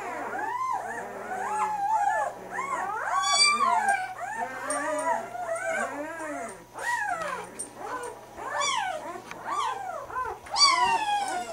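Newborn Great Dane puppies crying and squealing: many short, overlapping high cries that rise and fall in pitch.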